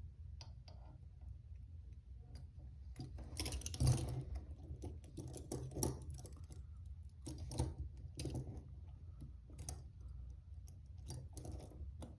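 Irregular small metallic clicks and scrapes of a key being worked in a handcuff lock, trying to work the double lock, over a low steady hum. The key does not work the double lock.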